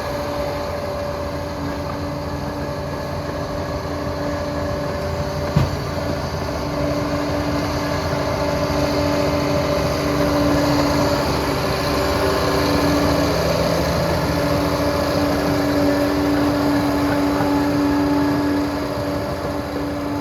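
Liebherr PR 746 crawler dozer working, its diesel engine running steadily with a constant whine over track and machine clatter. A single sharp knock comes about five and a half seconds in, and the machine gets a little louder from about eight seconds in, easing back near the end.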